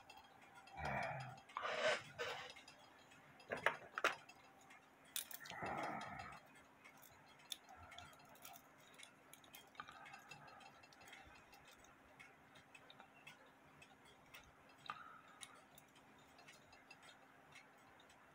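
Faint, steady clock ticking, with a few soft clicks and knocks of small brass parts and a wire lever as a cuckoo clock movement is handled and its lever bent, mostly in the first six seconds.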